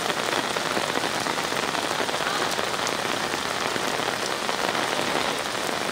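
Heavy rain pouring onto a flooded outdoor court, a steady hiss of drops splashing into standing water.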